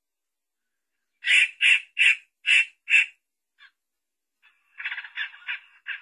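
Harsh squawking calls of a laughingthrush ('poksay'): five loud calls about a third of a second apart, then after a short pause a quicker, chattering series of shorter calls near the end.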